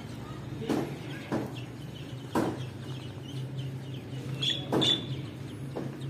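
Caged chickens clucking in short, sharp calls, mixed with high chirps from small cage birds, over a steady low hum.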